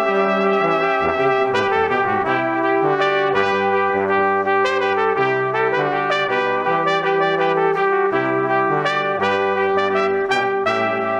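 Background music from a brass quartet of trumpets and trombones, playing overlapping held notes in slowly changing chords.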